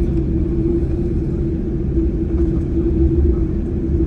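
Steady low rumble of a Boeing 747-8's cabin with a constant hum, heard from inside the passenger cabin.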